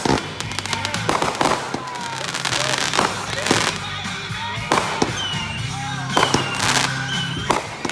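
Consumer fireworks going off in quick succession, a string of sharp bangs and pops from a firing cake. From about five seconds in, a few whistling tones from whistler fireworks sound among the bangs. Music plays faintly underneath.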